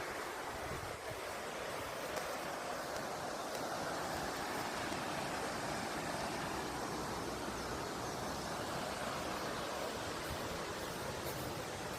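Waterfall: the steady, even rushing of falling water, with no break or change.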